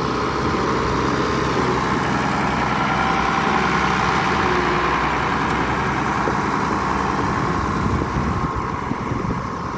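Tractor engine running steadily as the tractor drives along a gravel driveway, getting a little quieter near the end.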